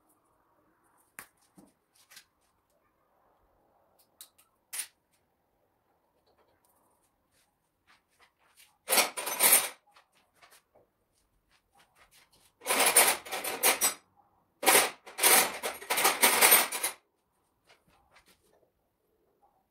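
Workbench handling noise: a few light clicks, then three bursts of rattling and clattering as tools or small metal parts are handled, the longest lasting about two seconds near the end.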